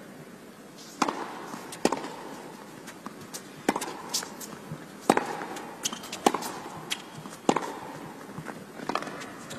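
Tennis rally: rackets striking the ball back and forth, with bounces between, heard as sharp pops about every second.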